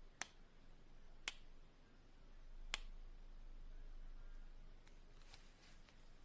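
Three sharp clicks about a second apart, then a few fainter ticks near the end, over faint room noise.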